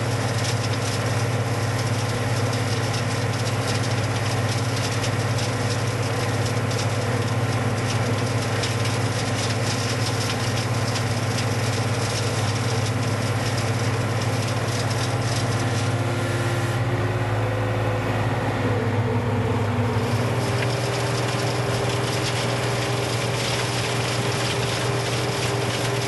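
Skid steer engine running steadily while it powers a Sweepster hopper broom, sweeping gravel off asphalt, with a steady hiss over the engine. About two-thirds through, the engine note shifts and the hiss thins for a few seconds.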